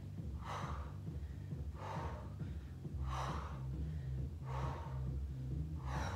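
A woman breathing hard with effort, five forceful breaths about one every second and a half, one with each leg-lift repetition.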